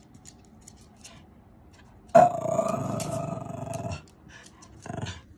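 Mini husky giving a drawn-out vocal call, steady in pitch, for about two seconds, then a shorter call near the end: an impatient husky 'talking'. A few faint clicks come before it.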